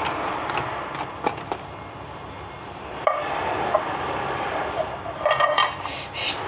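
Hot oil sizzling in a wok, with a few sharp knocks in the first two seconds and a clatter of ringing clinks near the end from a metal mesh strainer against the wok and pot.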